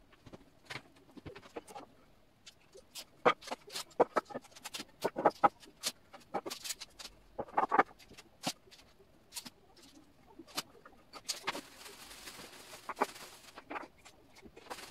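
Irregular sharp knocks and clicks of wooden parts and tools being handled during woodworking, with a couple of seconds of scraping noise about eleven seconds in.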